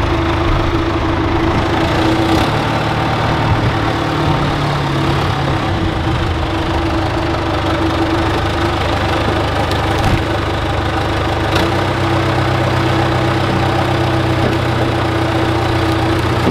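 John Deere 410C backhoe loader's diesel engine running steadily while the machine carries a stump in its loader bucket. The engine note rises a little a few seconds in, drops back, and rises again in the second half.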